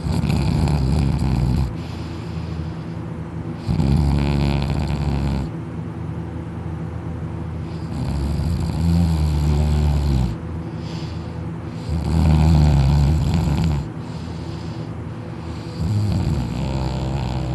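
A sleeping person snoring loudly: five long, rough snores about every four seconds, with quieter breathing noise between them.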